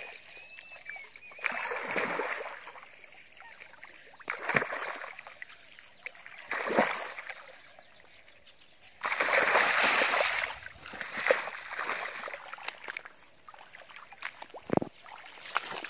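A hooked snakehead thrashing in shallow, weedy floodwater: splashes come in separate bursts, the longest and loudest lasting about two seconds, starting about nine seconds in. A short low thud follows near the end.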